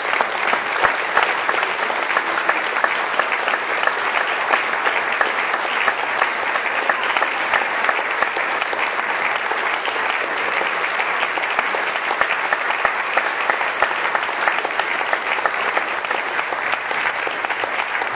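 Audience applauding, a long, steady applause from many people clapping at once.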